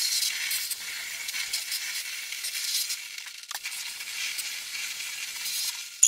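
Spray gun on a garden hose jetting water onto the fins of a split air conditioner's indoor coil to wash it: a steady hiss.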